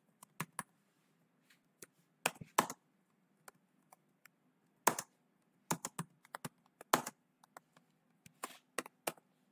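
Typing on a computer keyboard: irregular keystrokes in quick bursts with short pauses between them.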